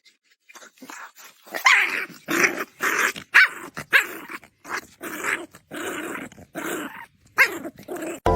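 Young puppy barking in a quick run of short yaps, about two a second.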